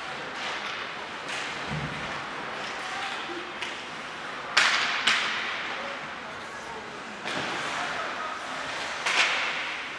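Ice hockey play in an indoor rink: sharp cracks of puck, sticks and boards, the loudest about four and a half, five and nine seconds in, each echoing through the hall. Under them is a murmur of spectators' voices.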